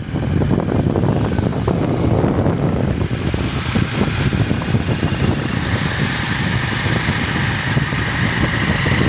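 Motorcycle riding along with its engine running steadily, wind buffeting the phone's microphone.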